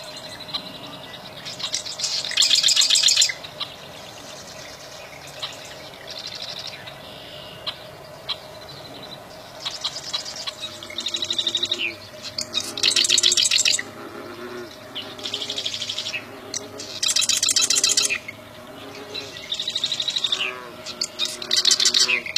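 Prinia (prenjak) singing: loud bursts of rapid, closely repeated high chirps, each about a second long, recurring every couple of seconds.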